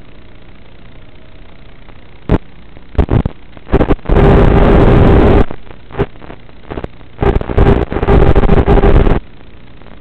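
Loud, distorted surges of noise on an FPV quadcopter's analog video-link audio, each lasting one to two seconds, with a steady hum under the loudest ones and a constant low hiss between them.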